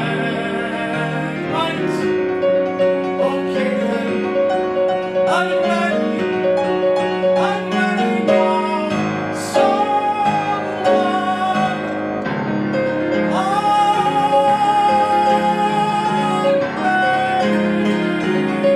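A man singing a slow cabaret ballad in full voice with vibrato, accompanied by piano. He holds a long note in the second half.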